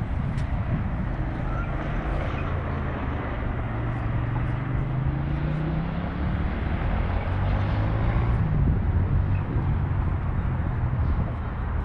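Motor traffic going by, with a vehicle engine whose pitch climbs steadily for a few seconds as it accelerates.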